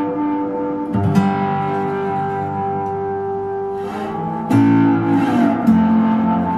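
Acoustic guitar laid flat and played lap-style: fingerpicked notes and chords ring on, with fresh plucks about a second in, around four and a half seconds and near the end, and one note gliding in pitch in between.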